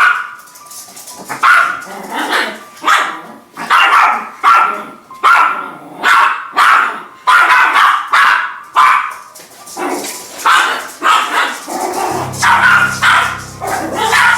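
A dog barking over and over in a steady run, a little faster than one bark a second. About twelve seconds in, a low steady hum joins it.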